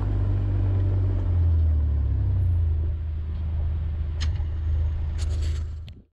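Kawasaki Mule Pro FXR UTV's 812cc three-cylinder engine running with a steady low rumble. A few sharp clicks come about four and five seconds in, and the sound cuts off suddenly near the end.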